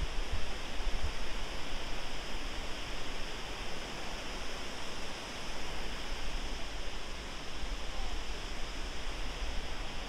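Fukiware Falls, water pouring over a rock ledge into the gorge, making a steady, even rushing noise.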